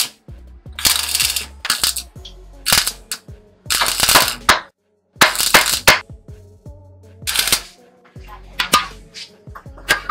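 Stick (arc) welder crackling in a string of short bursts, each under a second, as steel tube joints are tack-welded, with background music underneath.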